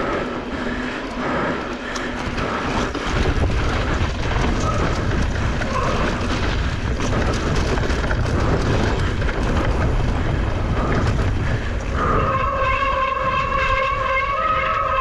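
Wind buffeting a handlebar-mounted action camera, with knobby mountain-bike tyres rolling over dirt and rock and the bike rattling on a fast downhill. About twelve seconds in, a steady whine with several overtones sets in and holds.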